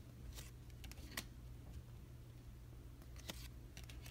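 Cardboard trading cards being handled and shifted between the fingers, giving a few faint short clicks over a low steady hum of room tone.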